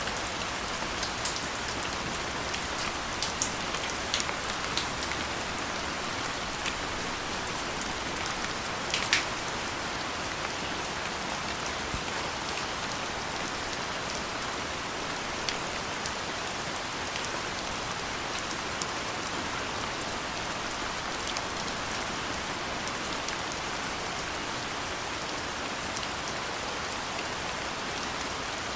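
Soft, steady rain falling, with separate drops ticking sharply now and then, more often in the first third and with one louder drop about nine seconds in.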